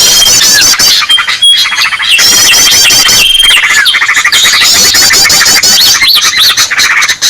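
Loud, dense mix of small-bird calls used as a bird-trapping lure: rapid repeated high chirps, a long steady whistle and short falling squawk notes layered over one another.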